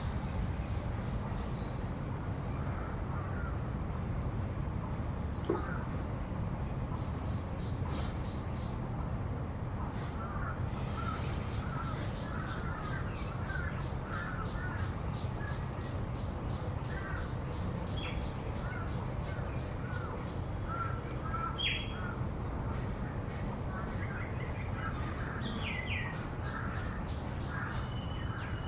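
Birds chirping and calling again and again, with a few sharper rising calls in the second half, over a steady high-pitched insect drone and a low background rumble.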